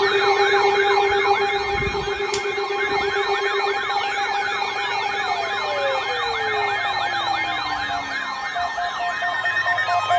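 Electronic siren-like warbling: rising sweeps repeating about three times a second over steady tones, with a long falling glide from about four to eight seconds in.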